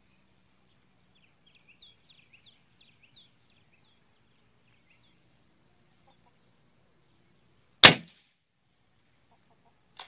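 A single shot from a Gamo Black Bull IGT Mach 1 .177 gas-piston break-barrel air rifle: one sharp crack about eight seconds in, the loudest sound. Before it, a small bird chirps a quick run of short descending notes, and a faint click follows near the end.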